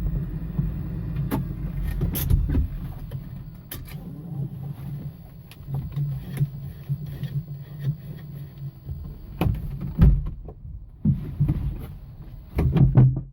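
Low, steady vehicle hum with scattered clicks and knocks.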